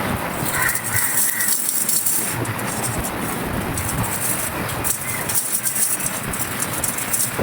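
Dry crumbly clay texture crumbling: a dense, continuous run of small crackles and crunches.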